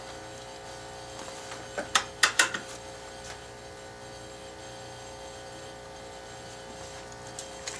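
Steady background hum with a quick cluster of sharp clicks and knocks about two seconds in: handling noise as the worker reaches for and picks up a squeeze bottle of cutting fluid at a hand tapping stand.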